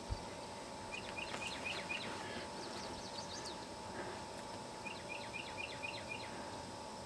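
A brief low thump at the very start, then a small songbird singing two runs of about six quick chirps with higher notes between them, over a steady outdoor hum.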